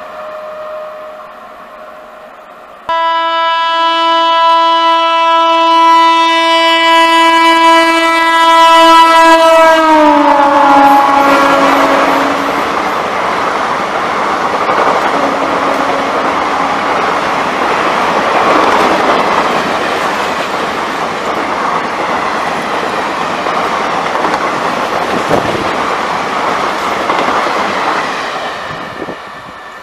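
Indian Railways express passenger train passing at high speed. The locomotive's horn sounds long and loud from about three seconds in and drops in pitch as the engine goes by. The coaches then rush past with a steady noise that fades near the end.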